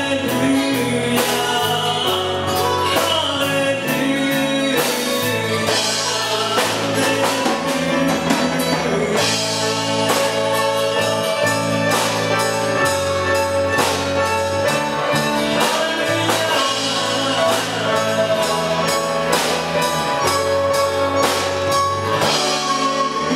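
A man singing a song into a handheld microphone, backed by drums and guitar with a steady beat.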